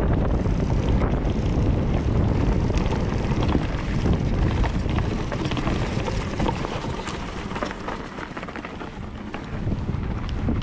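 Cube Stereo 150 mountain bike being ridden on a trail: wind rumbling on the microphone, with tyres rolling over dirt and stones and the bike rattling in many small clicks. The rumble eases for a couple of seconds about eight seconds in, then picks up again.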